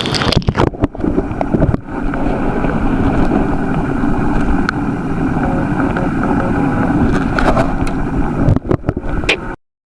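Steady water and wind noise on the microphone, as from footage shot in or over the sea, with a few abrupt cuts near the start and near the end before it stops suddenly.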